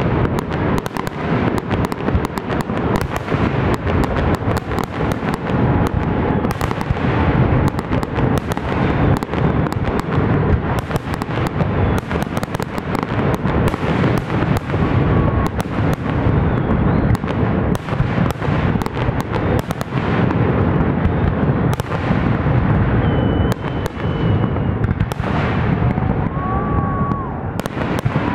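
Aerial fireworks display: a rapid, unbroken barrage of shell bursts and bangs.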